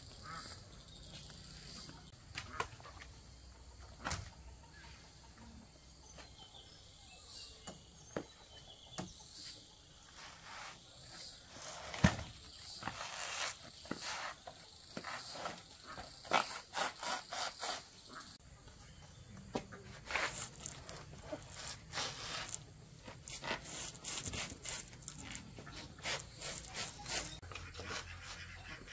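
Insects chirping steadily in the background under scattered rustling, scraping and knocking from handling or outdoor work. The loudest sound is a single sharp knock about twelve seconds in, and the knocks and rustles come thicker in the second half.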